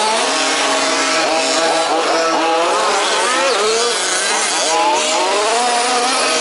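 Several 1/5-scale petrol RC off-road race cars with small two-stroke engines, revving and easing off over one another, their pitches rising and falling all the time.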